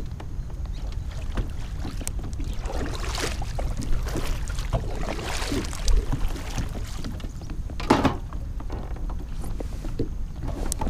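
Kayak paddle strokes: the blades of a double-bladed paddle dipping and splashing in the water, over a steady rumble of wind on the microphone. A sharp knock comes about eight seconds in.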